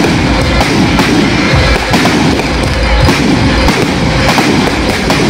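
Fireworks going off without a break: dense crackling with repeated sharp bangs over a low rumble.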